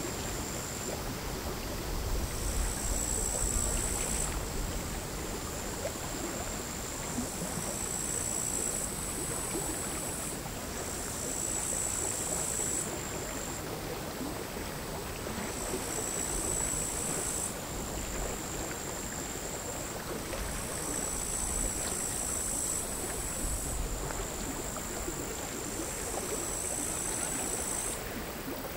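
Bush-crickets singing: a steady high-pitched buzz that swells into louder bouts of a second or two, again and again. Under it, small sea waves lap quietly and irregularly at the shore.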